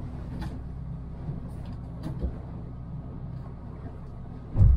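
A 21-foot Crooked Pilothouse boat's outboard motor running steadily under way through rough water, with one heavy low thump near the end.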